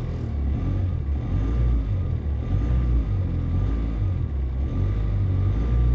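Globecar camper van's diesel engine running with a low rumble, a faint steady high whine over it. The owner calls it a light whimpering or whistling, stronger when he revs the engine and gone once the engine is warm, and does not know its cause.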